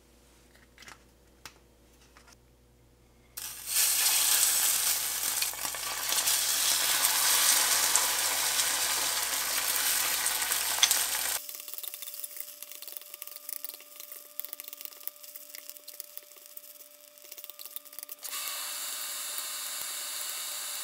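A corn mixture frying in hot oil in a cast iron skillet: after a few light clicks, a loud sizzle starts suddenly about three seconds in. Past the middle the frying goes on as a quieter crackling sizzle, with a spatula working in the pan, and turns to a steadier sizzle again near the end.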